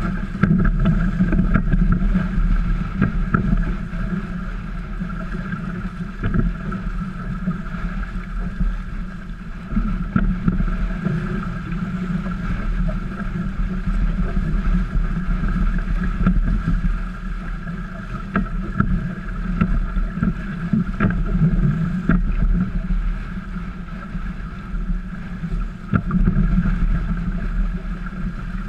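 Water rushing and splashing along the hulls of a trimaran sailing briskly, with wind buffeting the microphone. The loudness rises and falls unevenly.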